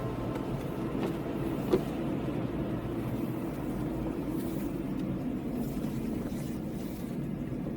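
A car driving along a road, with steady engine and road noise and a single sharp knock about two seconds in.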